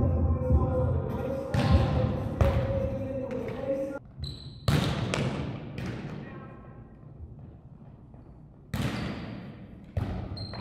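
Volleyball being struck again and again in a rally in a gymnasium: a string of sharp hits, each followed by a long echo from the hall.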